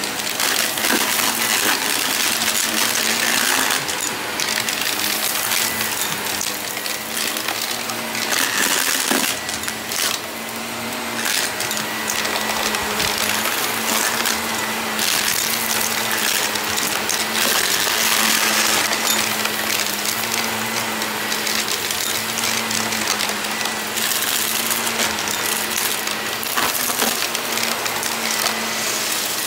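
Shark upright vacuum cleaner running on carpet with a steady hum and whine while it sucks up a pile of dumped dirt and debris. Irregular sharp clicks come through as bits are pulled in.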